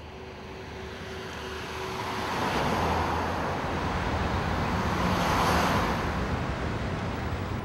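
Road traffic: cars driving past on a city avenue, a steady rush that grows louder over the first few seconds and swells again later on.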